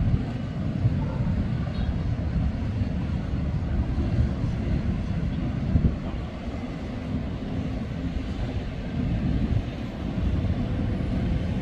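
Distant fireworks booming over a city: a steady low rumble with a few dull thumps, the sharpest about six seconds in.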